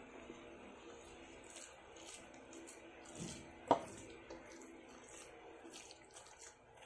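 Hand kneading raw ground beef in a plastic bowl: faint squishing with small ticks, and one sharp knock a little under four seconds in.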